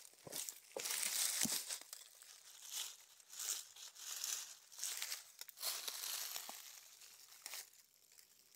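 Dry fallen leaves crackling and rustling in irregular bursts as hands rummage through the leaf litter and pull chanterelle mushrooms from the ground. There are a few sharp clicks in the first second and a half, and the crackle fades near the end.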